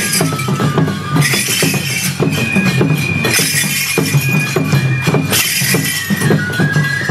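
Enburi festival music: a Japanese bamboo flute playing long held notes over a steady drum beat. Repeated bursts of bright metal clanging from small hand cymbals run through it.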